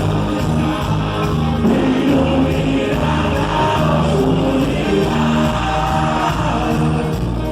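Music with singing, in the style of a choir or congregational song, with a steady low beat.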